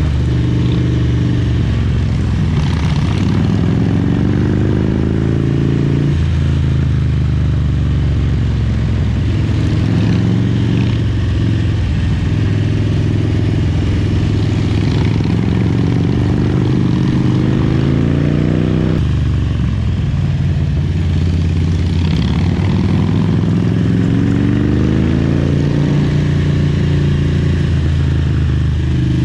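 2003 Harley-Davidson Road King's fuel-injected Twin Cam 88 V-twin running hard on the road, its pitch climbing several times under throttle and falling back suddenly about 6 seconds in and again about 19 seconds in.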